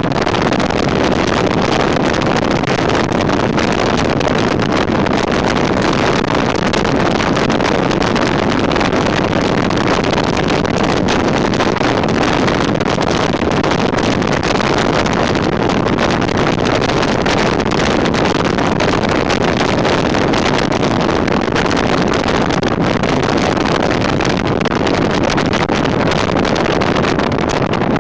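A Jeep CJ7 driving steadily on a paved road, heard as a continuous rush of wind over the microphone mounted outside the vehicle, mixed with tyre and road noise.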